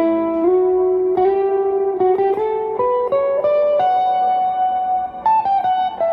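Electric guitar, a Fender Duo-Sonic HS, played through a Soul Food overdrive pedal: a melody of single sustained notes that mostly climbs in pitch, about a dozen notes.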